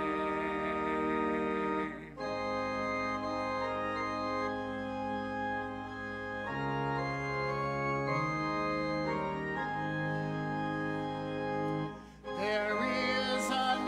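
Organ playing sustained hymn chords that change every few seconds, with a short break about twelve seconds in. Voices start singing near the end.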